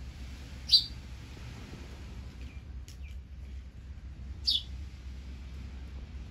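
House sparrow giving a few short, high chirps: a loud one about a second in and another a few seconds later, with fainter ones between, over a steady low rumble.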